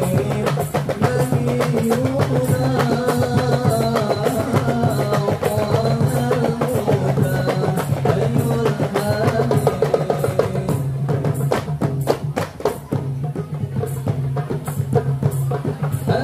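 Marawis ensemble playing: hand drums and a barrel drum beat a fast, dense rhythm under a lead voice singing a sholawat melody into a microphone. About eleven seconds in the singing drops away and the drumming carries on alone for a couple of seconds before the melody comes back.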